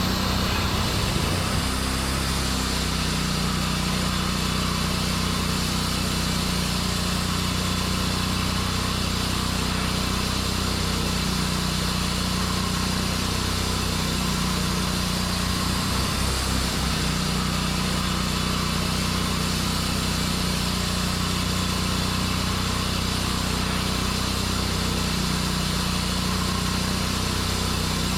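Sawmill engine running steadily at a constant speed.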